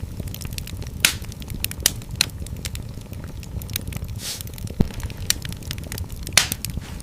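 Wood fire burning in a fireplace: a steady low rumble of flames with sharp, irregular crackles and pops, a few louder snaps about a second in, near five seconds and near the end.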